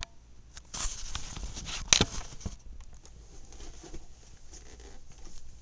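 Handling noise as a camcorder is moved and set in place: rustling and scattered small clicks, with one sharp click about two seconds in.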